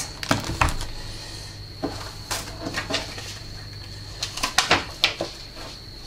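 Scattered light clicks and knocks of hands handling a small plastic robot vacuum cleaner with its battery pack just seated, then a few sharper taps and rustles as a paper manual is handled near the end.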